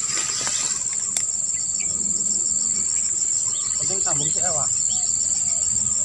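Steady high-pitched insect chorus: a continuous shrill drone, with a faster pulsing insect call just beneath it.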